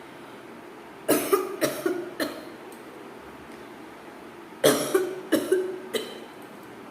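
A person coughing deliberately for a coughing challenge, in two fits of four or five quick coughs each. The first fit comes about a second in and the second about three and a half seconds later.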